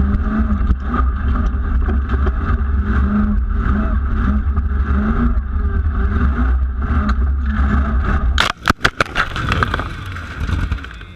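Formula offroad vehicle's engine revving hard under load on a steep dirt climb, heard from on board. About eight seconds in the engine sound cuts off and a rapid burst of sharp knocks and clattering follows.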